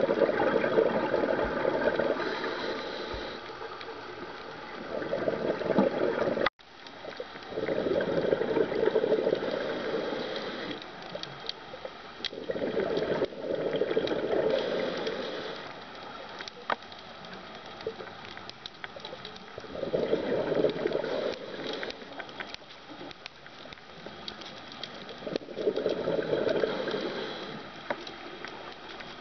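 Scuba diver breathing through a regulator underwater: a gurgling rush of exhaled bubbles about every five or six seconds, with quieter stretches between and faint scattered clicks throughout. The sound cuts out for an instant a little over six seconds in.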